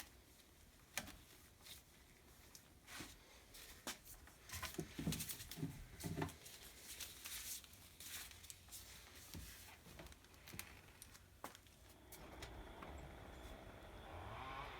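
Faint scattered clicks and knocks with a few dull thuds, as of hands working on a motorcycle engine and its parts; a faint steady hiss comes in near the end.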